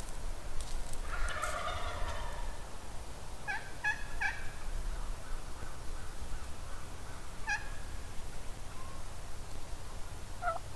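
Wild turkey calling: a longer rattling call about a second in, then three quick yelping notes, and a single further note near the end.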